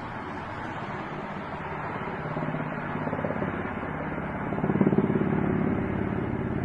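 Helicopter circling, its rotor blades beating in fast, even pulses that grow louder and peak about five seconds in.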